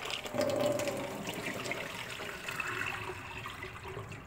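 Water from a kitchen tap running and splashing into a bowl of rice in a stainless steel sink as the rice is rinsed.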